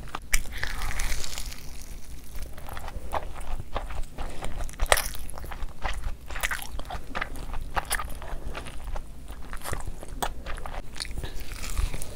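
Biting and chewing of crunchy Cheetos-crusted rice paper rolls dipped in cheese sauce, a string of sharp irregular crunches.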